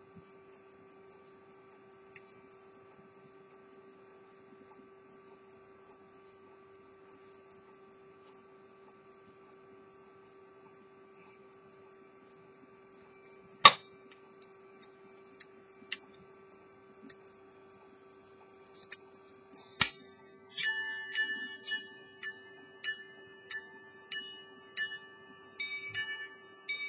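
Minute repeater pocket watch by Edmond Mathey-Tissot: the running movement ticks faintly, with one sharp click about halfway through. Near the end the repeater's governor whirs briefly and the gongs start striking the time in evenly spaced, ringing strikes, somewhat under two a second.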